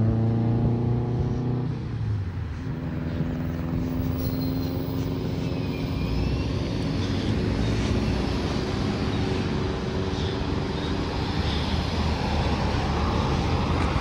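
Road traffic at a signalised intersection: engines running and tyres on pavement. An engine's steady note fades about two seconds in, and another vehicle grows louder near the end.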